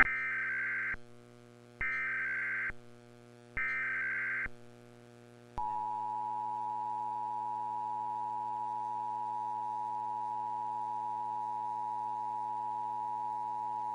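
Emergency Alert System tones: three short bursts of SAME header data, each about a second long, then, about five and a half seconds in, the steady two-tone EAS attention signal that holds to the end. A low steady hum sits underneath.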